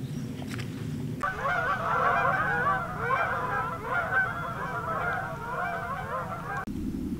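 A flock of birds calling, many short calls overlapping densely. It starts suddenly about a second in and cuts off abruptly shortly before the end, with a low steady outdoor rumble on either side.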